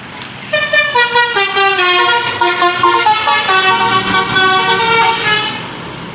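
Tour bus's Basuri telolet musical horn playing a tune of stepped multi-tone notes, starting about half a second in and cutting off shortly before the end.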